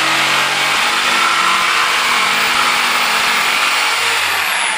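Corded jigsaw cutting a curved line along a 1x3 wooden furring strip, its motor whining steadily over the rasp of the blade. Near the end the whine falls away as the saw is switched off and winds down.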